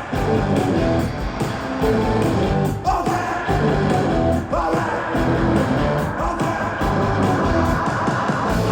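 Post-punk band playing live: an instrumental passage with a steady drum beat, bass and guitar, with an instrument sliding up in pitch about three seconds in and again about a second and a half later.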